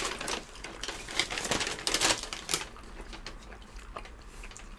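Close-miked eating sounds: chewing and biting crisp pan pizza, a run of irregular sharp crunchy clicks that thin out in the second half.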